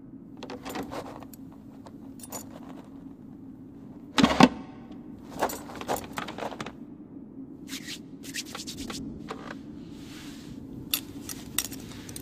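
Small foley clicks and rattles over a steady low hum: a wooden chair set down with a thump about four seconds in, then scattered light clicks and rattles of knitting needles as knitting begins.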